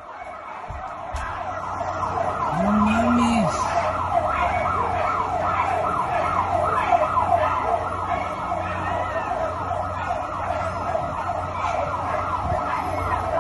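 A siren sounding loudly in fast repeated pitch sweeps, about three a second, without letup. A voice calls out once, briefly, about three seconds in.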